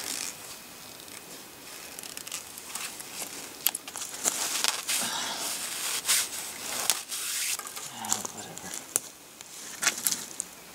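Close handling noise of hands working at a tree trunk: irregular rustling, crinkling and scratching, with many sharp little clicks, from a synthetic jacket and hands on rough bark.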